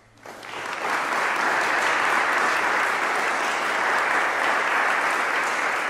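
Audience applauding: it breaks out suddenly, swells to full strength within about a second, then holds steady.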